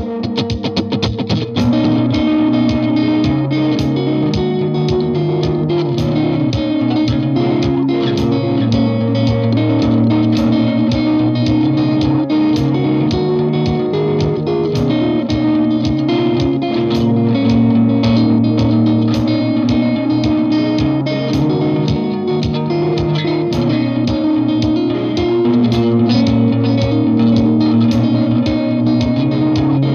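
Fender Thinline Jaguar electric guitar played through a Boss RE-20 Space Echo and other effect pedals into a Vox AC15 amp. Clean picked notes ring over a sustained, echoing layer of held notes.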